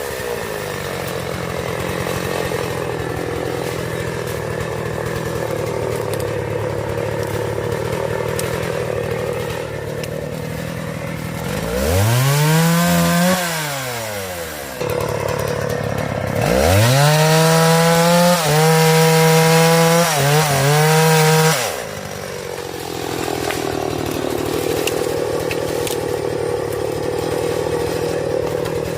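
Two-stroke chainsaw idling, briefly revved and let fall back about twelve seconds in, then held at full throttle for about five seconds, dipping twice, before dropping back to idle.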